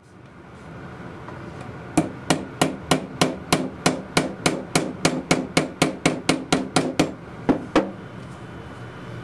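Hammer tapping common-nail rivets on a plywood-and-leather bellows valve, clenching the cut nail ends over. About twenty quick, light strikes, roughly three a second, start about two seconds in and stop near the end, with a faint ring under them.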